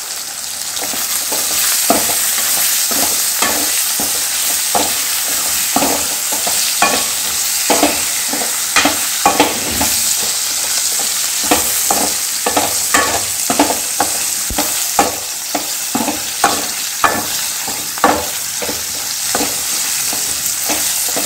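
Sliced onions and green capsicum sizzling in oil in an aluminium kadai, with a steady frying hiss. A steel ladle stirs them, knocking and scraping against the pan about once or twice a second.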